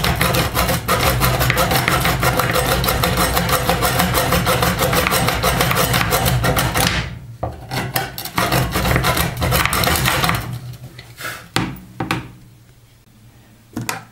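Hacksaw blade sawing through a seized burner bolt on a gas hob, in fast, even back-and-forth strokes for about seven seconds. It then goes on in a few slower strokes and clicks and stops.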